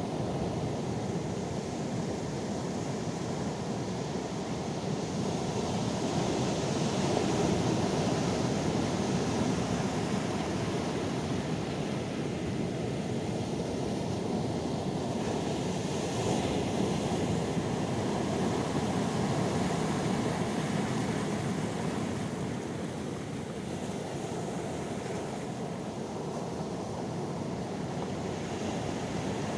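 Calm sea waves washing ashore, a steady rushing that swells and ebbs slowly every several seconds.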